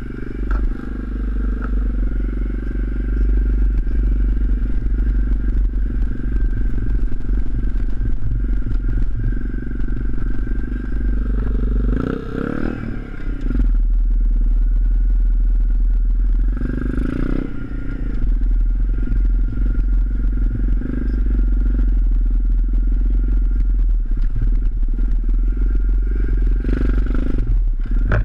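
Pit bike's small single-cylinder four-stroke engine running on a trail ride, the revs rising and falling, with the engine note changing briefly about twelve and seventeen seconds in. Heavy wind rumble on the microphone, and the bike rattling over rough ground.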